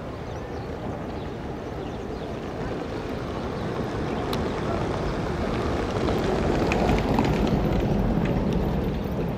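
Engine of a small fishing boat running as it motors in, getting louder about halfway through as it comes closer.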